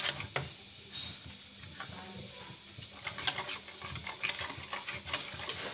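Thick yogurt with ground spices being stirred and beaten in a bowl: irregular wet scrapes and light clicks of the utensil against the bowl, with a louder scrape about a second in.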